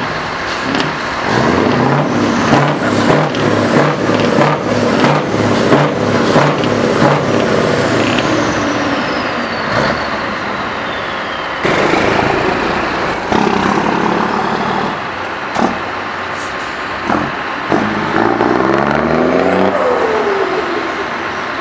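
Heavy truck diesel engines on loud open exhaust pipes, pulling away under hard throttle, the engine note climbing and stepping as the gears change. A falling whistle sounds about eight seconds in, and another truck accelerates away near the end, its revs rising.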